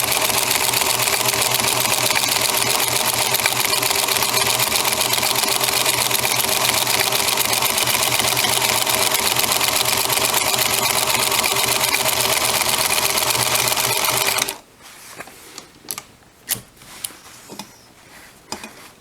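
Singer 222K Featherweight sewing machine running steadily with a zigzag attachment fitted, stitching a zigzag over a fraying strap edge with a rapid needle clatter. It stops abruptly about three-quarters of the way through, followed by a few light clicks and taps.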